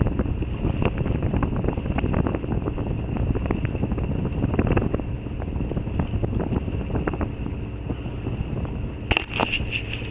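Steady low rumble of a sailboat under way, with wind buffeting the microphone and scattered clicks and crackles. A burst of sharper clatter comes near the end.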